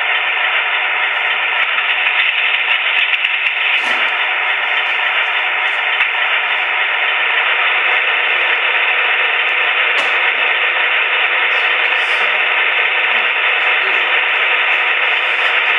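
Onboard Quantum sound decoder of an HO-scale Proto 2000 Alco RS-27 model diesel locomotive playing its engine idle with the radiator cooling fans switched on. It is a steady, even hiss through the model's small speaker, with no deep rumble.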